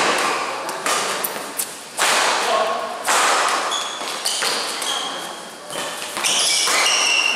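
Badminton rally: rackets striking the shuttlecock about once a second, each hit ringing on in the echo of a large hall, with short high squeaks of court shoes in the second half.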